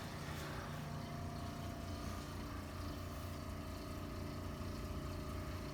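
Electric motor of a chiropractic treatment table running with a steady low hum as the table sets the patient up.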